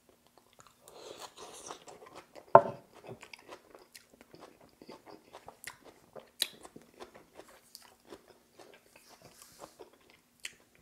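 Close-miked crunching and chewing of a mouthful of coleslaw, with many small crackles and wet mouth clicks. One sharp knock about two and a half seconds in is the loudest sound.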